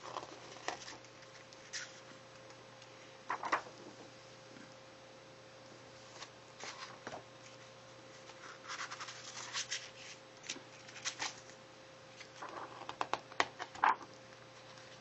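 Artbook pages being turned by hand: scattered short paper rustles and flicks, busiest near the end, over a faint steady hum.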